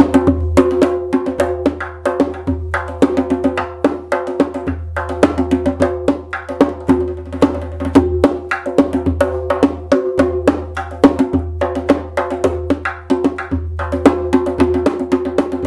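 Dohlla (bass darbuka) played in a fast, dense rhythm, many strokes a second, with the drumhead ringing and a low boom underneath. The right hand keeps dry closed strokes while the left-hand strokes stay open and high, with no dry sound, thanks to the right-hand damping technique.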